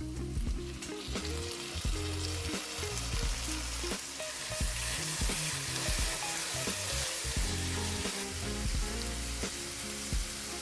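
Food sizzling in a hot frying pan, with a few utensil strokes as it is stirred, over background music.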